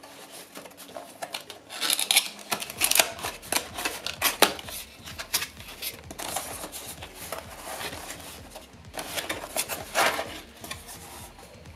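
Cardboard retail packaging being handled and opened: irregular rustling, scraping and light tapping of card as the boxed cooler is lifted out and the box flaps are folded back.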